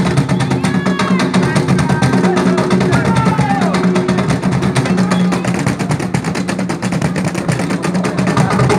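Several cajones, wooden box drums, played by hand together in a fast, dense drum-roll rhythm. Voices from the crowd call out over it in the first half.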